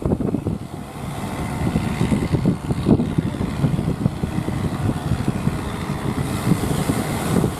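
Strong wind buffeting the microphone, an irregular low rumble that rises and falls in gusts.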